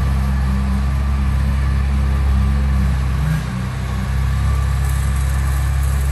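Engine running steadily at a low pitch, easing off briefly about three and a half seconds in.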